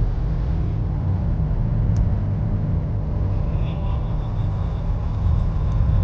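Steady low road and engine rumble heard from inside the cabin of a moving 2016 BMW X3 SUV.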